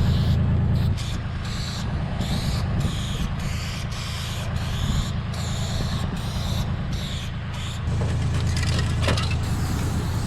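Aerosol spray paint sprayed through a wide fat cap in a string of short hissing bursts, about two a second, over a steady low hum. A brief rattle near the end.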